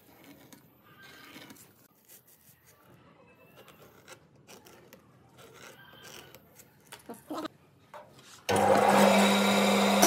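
Faint scratching of a pen tracing around a pad on a wooden board, with light knocks of handling. About eight and a half seconds in, a band saw starts loud and suddenly, a steady hum with hiss as its blade cuts the board.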